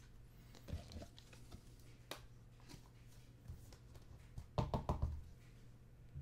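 Faint handling noise of a trading card being slid into a clear rigid plastic card holder: scattered light plastic clicks and scrapes, with a louder cluster of quick clicks a little over halfway through.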